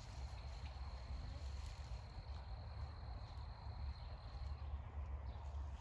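A steady, high-pitched insect trill that stops about four and a half seconds in, over a low rumble of wind or handling noise on the microphone.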